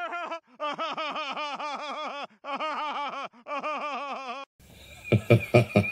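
A cartoon man laughing heartily: rapid, evenly paced 'ha-ha-ha' runs in four bursts with short breaks. Near the end a second, lower and choppier laugh cuts in.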